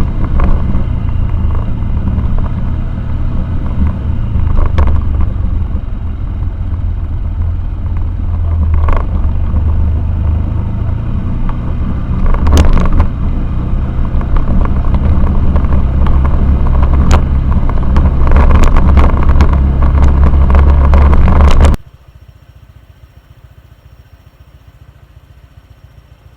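Motorcycle under way, its engine running under heavy low wind noise on the microphone, with scattered clicks and knocks. The sound cuts off sharply near the end, leaving only a faint steady high whine.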